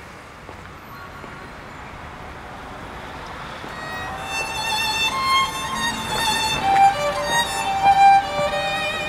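Background score: a violin melody with vibrato comes in about four seconds in and swells, over faint background noise.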